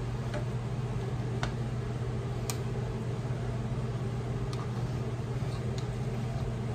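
A steady low hum of room background noise, with a few light clicks of a utensil against glass canning jars while they are filled, the sharpest about two and a half seconds in.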